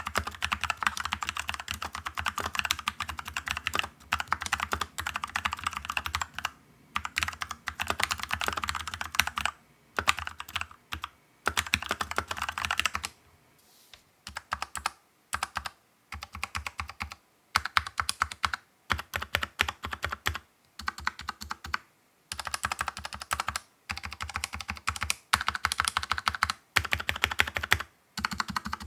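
Ignik R-IT 68a mechanical keyboard with lightly lubed Huano brown switches being typed on: a fast, continuous run of keystroke clacks with aftermarket keycaps fitted. After a short pause about halfway, the original keycaps are back on and the keystrokes come in separate bursts with gaps between them.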